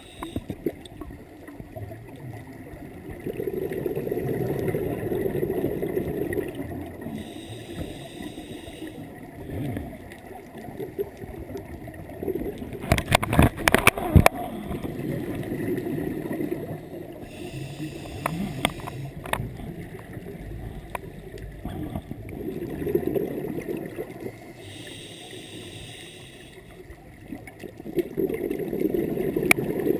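Scuba diver breathing through a regulator, heard underwater: a short hissing inhale, then a long bubbling exhale, about three breaths in all. A quick cluster of sharp clicks comes about halfway through.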